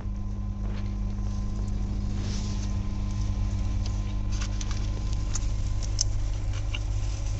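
Steady low rumble of a moving vehicle with a faint steady hum. Scattered light clicks and rattles come in from about halfway through.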